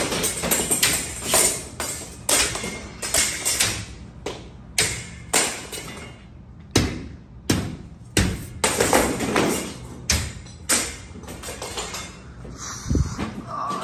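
Irregular knocks, bangs and clatters, about one or two a second, as an old suspended ceiling's metal grid and ceiling tiles are pulled down and knocked loose.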